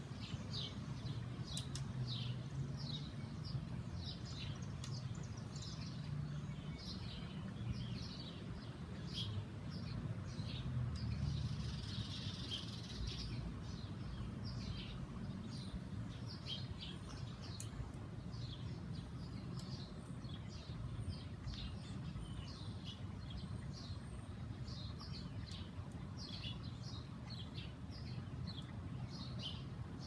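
Small songbirds chirping over and over, short quick high notes that drop in pitch, a few a second, over a steady low rumble of background noise.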